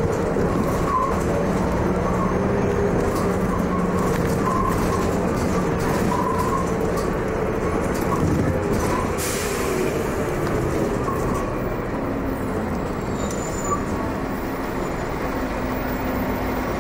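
MCW Metrobus double-decker's diesel engine and transmission running as the bus moves through traffic, heard from the upper deck, the engine note drifting up and down with the throttle. There is a short hiss about nine seconds in.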